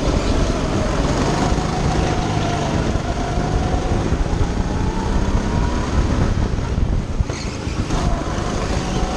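Go-kart engine running at speed, heard from onboard with rushing noise; its pitch climbs slowly for several seconds, drops and breaks up about seven seconds in, then picks up again.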